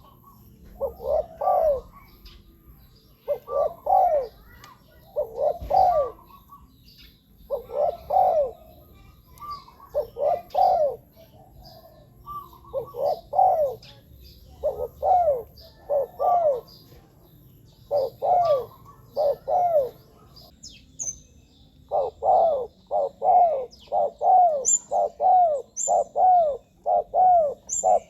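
Spotted dove cooing repeatedly in short phrases of two or three coos, with a pause about two-thirds of the way through and then a quicker, unbroken run of coos near the end. Faint high chirps of other small birds sound behind it.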